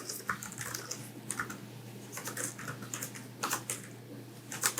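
Typing on a Cherry 9200 compact wireless keyboard, a non-mechanical keyboard: soft, irregular key clicks, with a few quick bursts of keystrokes about three and a half seconds in and near the end.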